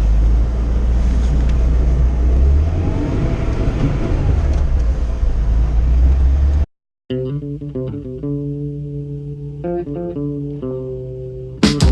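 Lada Zhiguli's engine and road noise heard inside the moving car, a steady low rumble whose pitch shifts a few times. It cuts off suddenly about two-thirds of the way in, giving way to plucked guitar and bass music, with drums joining near the end.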